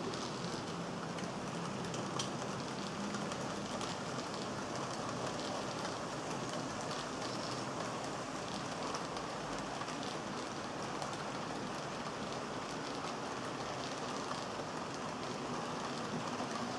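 HO scale model trains running on the layout: a steady rolling rattle of small metal wheels on the track.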